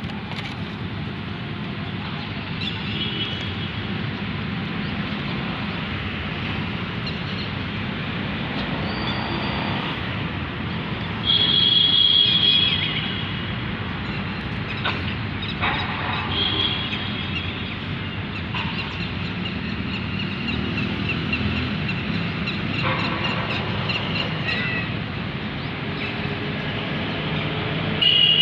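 Steady outdoor background noise, with a louder high-pitched tone for about two seconds starting about eleven seconds in.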